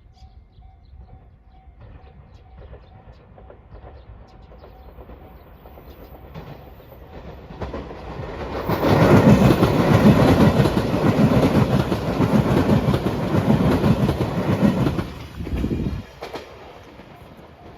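Level crossing bell ringing in a faint repeating tone as a JR Shikoku 8000 series limited express train approaches. The train then passes loudly over the crossing for about seven seconds, wheels clattering on the rails, and the noise drops away suddenly about sixteen seconds in.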